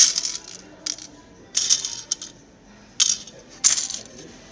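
Loose LEGO bricks clattering inside the clear plastic Pick-a-Brick containers as a hand jostles them, in about five sudden rattling bursts, each dying away within half a second.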